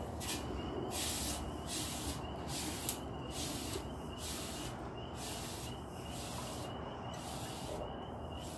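Hot high-carbon steel punch hissing in water as it is dipped in and out of the slack tub in short dips, about one sizzle a second, weakening near the end. The quick dips keep a quench line from forming.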